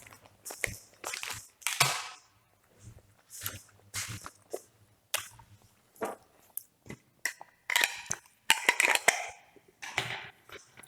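Printer-kit packaging being handled: irregular crinkling and sharp clicks and crackles, with a few longer rustles.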